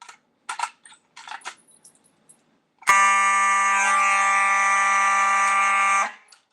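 A few light clicks, then a fire alarm sounds a loud, steady, harsh tone for about three seconds and cuts off abruptly.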